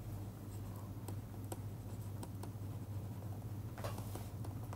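Stylus writing on a tablet screen: faint, irregular taps and short scratchy strokes as the words are handwritten, with a slightly longer scratch about four seconds in. A steady low hum runs underneath.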